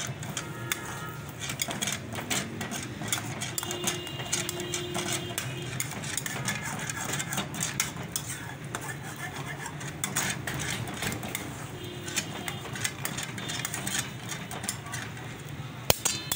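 Chicken pieces frying in hot oil in a wok over a gas burner, sizzling with many sharp crackles, and metal tongs now and then clinking against the pan.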